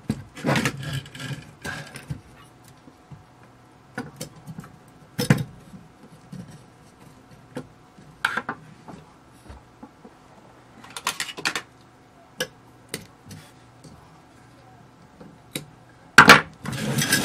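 Scattered clicks, clinks and scrapes of a metal electronics chassis being worked apart by hand with a screwdriver, as circuit boards and modules are shifted against the housing. A louder cluster of clatter comes near the end.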